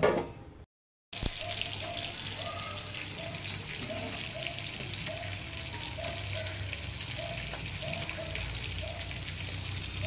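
A metal plate lid clatters on the pot right at the start; then, after a short break, fish kulambu simmers in a clay pot, a steady crackling, bubbling hiss full of small ticks. A faint short note repeats about twice a second behind it.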